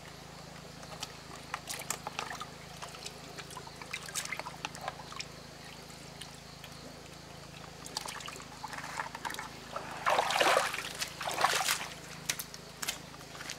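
Live fish being handled in a plastic bucket of water: small splashes and trickles throughout, with a louder burst of splashing and sloshing about ten seconds in.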